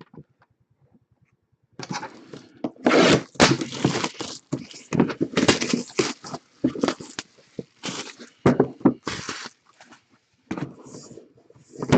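Packaging of a hockey card box being torn open: a run of irregular ripping and crinkling that starts about two seconds in, pauses briefly, then starts again near the end.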